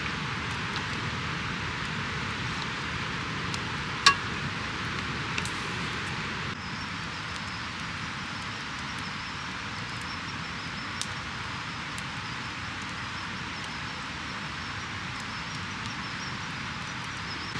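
Wood campfire burning with a few sharp crackling pops, the loudest about four seconds in, over the steady rushing of a river.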